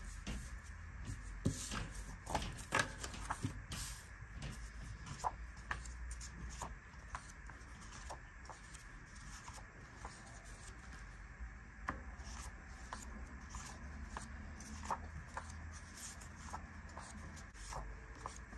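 Sheets of scrapbook paper being leafed through and laid down on a desk: scattered soft rustles and light taps, busier in the first few seconds. A faint steady hum runs underneath.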